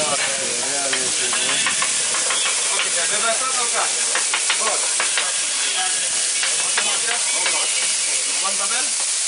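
Food frying on a hot stall cooking surface, with a steady sizzle and frequent short clicks of utensils, over market chatter.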